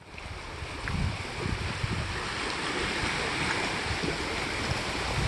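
Lake waves washing on the shore, a steady rushing, with wind gusting on the microphone in low rumbles; it fades in over the first second.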